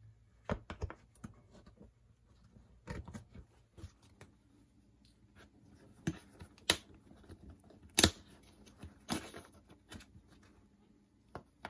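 Plastic retaining clips and body pins being pried out of the seat-back cover of a 2020 Chevrolet Bolt EV rear seat with a small caulking tool: scattered sharp clicks and snaps at irregular intervals, the two loudest about two-thirds of the way through.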